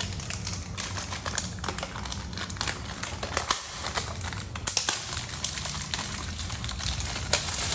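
Bicycle pedals and their small parts being handled, giving rapid, irregular clicks and rattles over a steady low hum.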